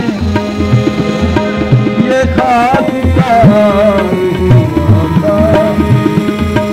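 Background music: a South Asian-style song track with a steady hand-drum beat under a bending, ornamented melody.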